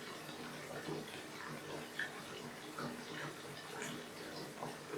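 Water being played with at close range: small drips, plops and splashes scattered throughout, with one sharper plop about two seconds in.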